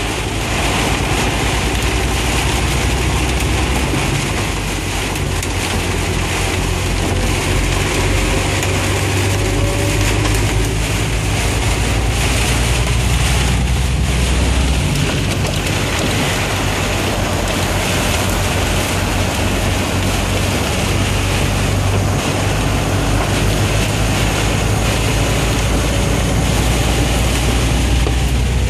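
Heavy rain and hail pelting a vehicle's roof and glass as a loud, steady wash of noise, over the low rumble of the vehicle driving on a wet road.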